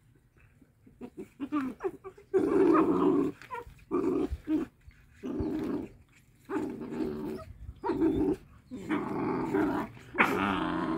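Wolf pups growling in repeated short bouts, about eight in all, while they chew at a large raw meaty bone together.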